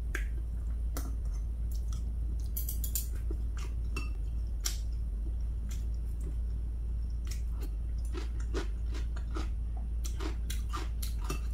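Metal chopsticks and a spoon making irregular small clicks against glass and ceramic bowls while someone eats and chews, over a steady low hum.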